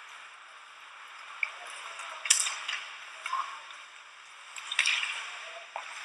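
Ice hockey play: skates hissing and scraping on the ice, with several sharp clacks and short scrapes of sticks, puck and skate stops. The loudest come about two seconds in and again just before five seconds.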